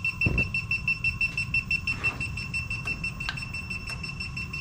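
Handheld combustible-gas leak detector sounding its alarm: a rapid series of high beeps, several a second. It is sensing propane near the lit burners of the gas stove.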